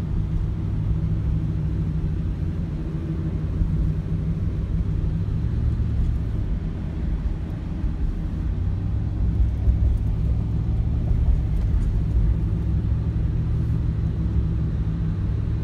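Vehicle cabin noise while driving at a steady speed: the engine and tyres on the road make a continuous low rumble that barely changes.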